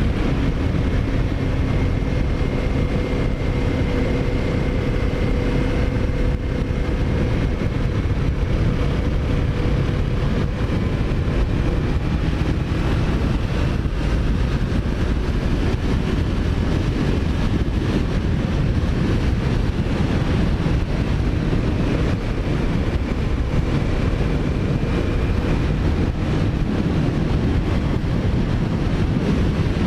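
Kawasaki Ninja 400's parallel-twin engine running at a steady cruise, its pitch drifting slowly up and down. Heavy wind noise on the microphone rumbles over it.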